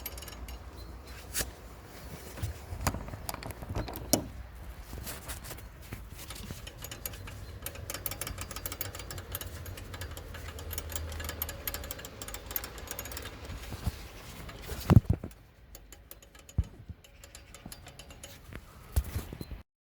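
Mercedes OM651 diesel engine idling, with rapid light ticking and scattered clicks over its low hum. This is the chirping at idle typical of OM651s with two-stage turbocharging. About 15 seconds in there is a loud knock, after which the low hum drops away and only a few clicks remain.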